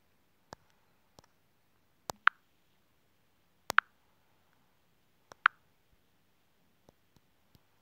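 Taps and handling on a smartphone: faint sharp ticks scattered throughout, and three louder short pops about a second and a half apart, each coming just after a sharp tick.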